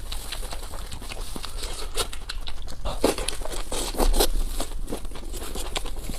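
Close-up eating sounds: quick wet clicks of chewing and mouth noise, with a few louder crunches about three and four seconds in.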